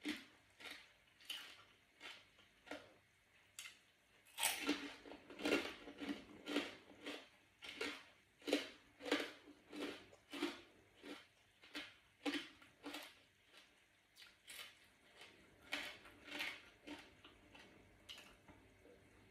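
Close-miked chewing of a mouthful of mushroom salad: a steady run of short, moist chews at about two a second, busiest and loudest through the middle stretch.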